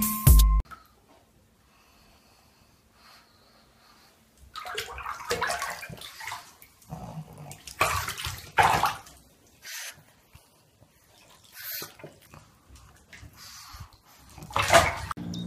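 Water splashing and sloshing in a bathtub around a wet pug, in irregular bursts with short quiet gaps. The loudest splash comes near the end.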